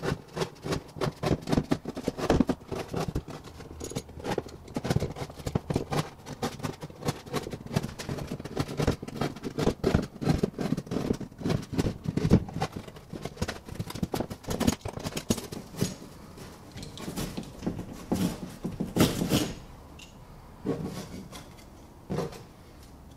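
Utility knife blade cutting a circle through foam tile backer board in quick, short strokes, a dense run of scratchy cuts that stop a few seconds before the end.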